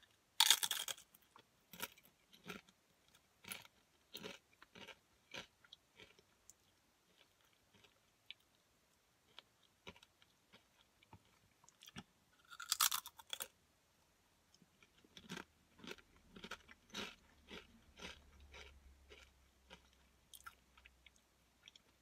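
Paqui Zesty Salsa Verde tortilla chip bitten and chewed: a loud crunch of the first bite about half a second in, then many small crisp chewing crunches, a second loud bite a little past halfway, and more chewing after it.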